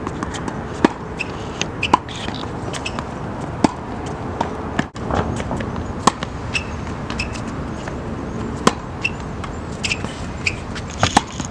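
Tennis ball struck by rackets and bouncing on an outdoor hard court during a baseline rally: a sharp pop every second or two over steady open-air noise.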